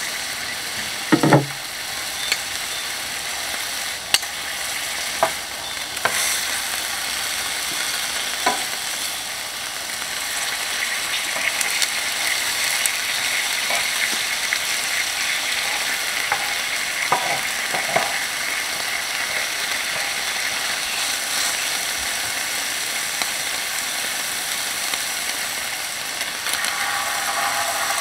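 Steady, dense high-pitched insect chorus of late-summer crickets and katydids, with a few brief sharp falling calls standing out, one about a second in and others later.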